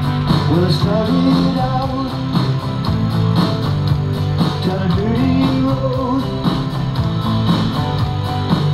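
Rock music with guitar over a steady beat.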